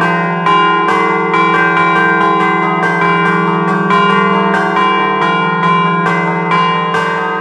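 Peal of three bronze church bells in E-flat, cast by De Poli in 1947, chimed by hand with the clappers pulled on chains while the bells hang still. It is a quick rhythmic tune of about three strokes a second, each stroke ringing on into the next, heard close up in the belfry.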